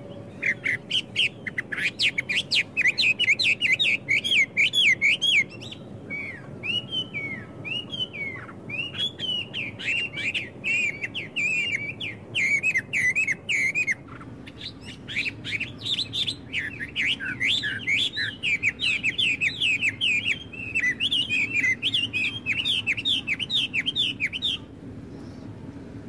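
Blackbirds chattering in a dense run of quick, sharp calls over a steady low background rumble. The calls break off briefly around the middle and stop shortly before the end.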